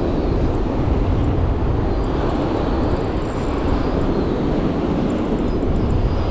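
Steady wind buffeting the microphone over the continuous rush of surf on a sandy beach.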